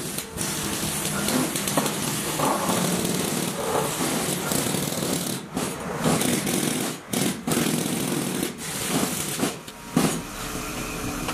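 Excavator-mounted vibratory pile driver running steadily and rattling as it drives a PVC sheet pile into wet mud, with a few brief breaks in the noise.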